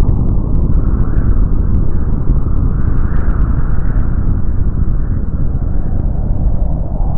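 Loud, steady low rumbling noise with a few faint ticks.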